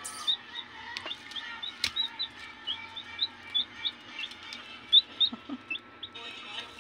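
A baby chick peeping over and over, short high chirps at about three a second.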